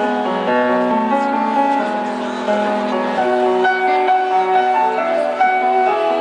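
Live instrumental music with piano: a run of held melodic notes over a steady low sustained tone.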